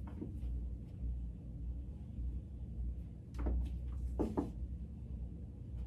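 Quiet room with a steady low rumble and a few brief soft knocks or rustles a little past the middle.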